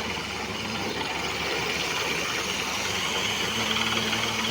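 Borewell drilling rig running steadily, its engine and machinery making a continuous loud drone.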